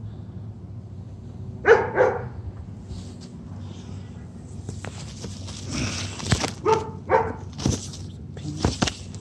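A dog barking: two quick barks about two seconds in, then a few more short barks later, over a steady low hum.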